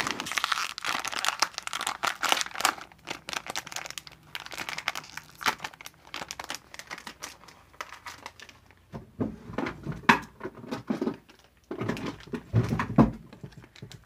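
Close, muffled rustling and crinkling with irregular small clicks, picked up by a phone set down with its camera covered, and a few dull thumps in the second half.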